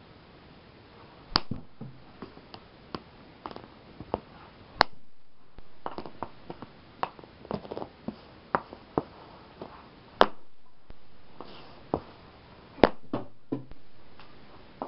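Hockey slapshots on a hard, shiny indoor floor: sharp cracks of the stick hitting the ball or puck, the four loudest a few seconds apart and some followed by a short fading noise, with lighter stick taps in between.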